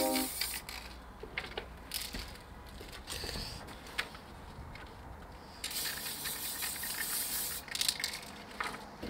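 An aerosol spray-paint can hisses steadily for about three seconds in the second half. Before that come a few light clicks and rustles of the can and a paper stencil being handled.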